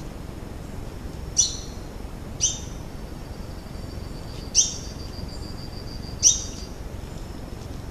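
Four short, sharp, high-pitched animal calls, each dropping quickly in pitch, spaced one to two seconds apart, over a faint steady thin high tone.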